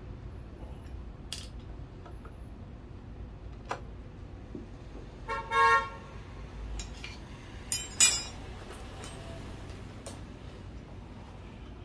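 Light metallic clinks and taps of tools and engine parts being handled, loudest as a quick cluster about two-thirds of the way in. About halfway through, a short high tone sounds for half a second.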